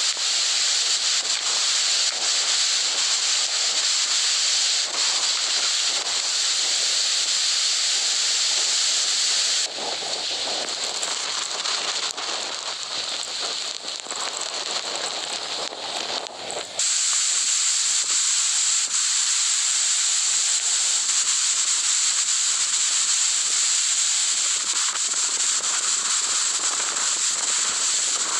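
Hurricane-force wind and driving rain, heard as a loud, steady hissing rush. About ten seconds in it turns quieter and duller for several seconds, then the loud hiss returns.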